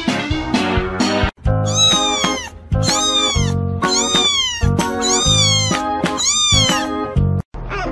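Music for about the first second, then a young kitten meowing five times in a row, each call high and falling in pitch.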